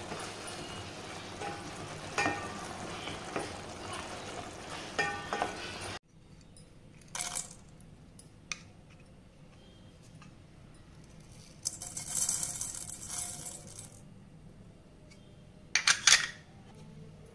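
A wooden spatula stirs a thick curry bubbling in a steel pot, with a steady simmering hiss and a few knocks against the pot. After a sudden cut, whole spices and seeds are dropped and poured into an empty stainless-steel grinder jar: short clinking and rattling bursts about a second in, a longer rattle of seeds in the middle, and a loud clatter near the end.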